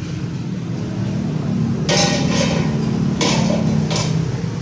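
Metal planter parts clanking against each other and the concrete floor as they are handled, three sharp clanks over a steady low hum.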